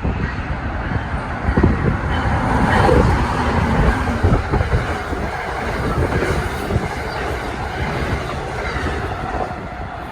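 A train passing on the tracks: a steady noise of wheels on rail, loudest a few seconds in and easing off near the end.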